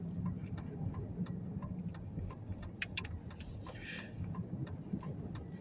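Vehicle engine running steadily with a low hum, over a regular light clicking about three times a second.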